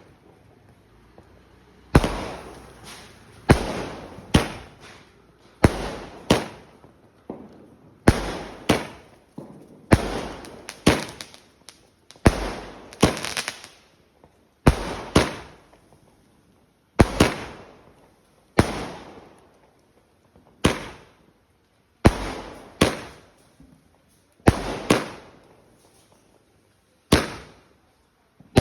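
Diwali fireworks going off: a steady series of sharp bangs about one to two seconds apart, often in quick pairs, each followed by an echoing, fading tail.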